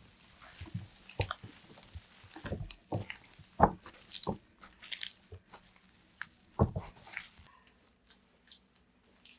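Rubber-gloved hands tossing and mixing seasoned green onions in a plastic basin: irregular wet squishing and rustling of the stalks, with a few louder thumps, the loudest about three and a half seconds in and again near seven seconds.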